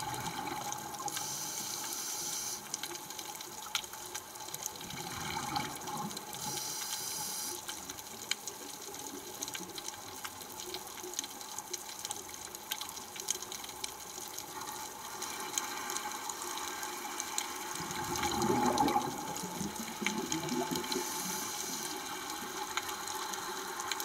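Underwater ambience picked up by a camera in its housing: a steady watery hiss scattered with fine clicks, growing louder and fuller for a moment about eighteen seconds in.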